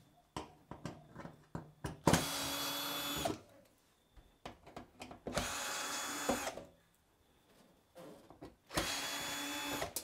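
Cordless drill-driver backing out the screws of a washing machine's metal rear cover: three short steady runs of about a second each, with small clicks and taps between them.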